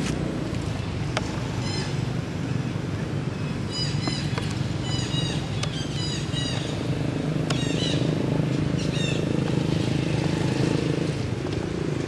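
Small birds chirping in quick runs of short high notes over a steady low motor rumble, which grows a little louder in the second half.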